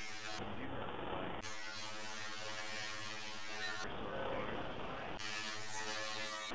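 A steady buzzing drone taking turns with stretches of rough hiss-like noise, switching every one to two seconds.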